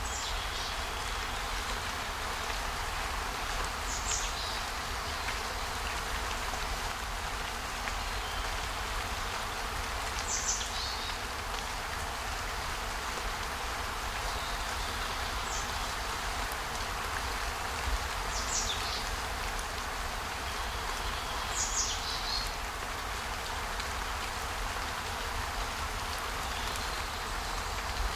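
Outdoor nature ambience: a steady rain- or water-like hiss, with a short high call sliding down in pitch that comes back about every three to six seconds.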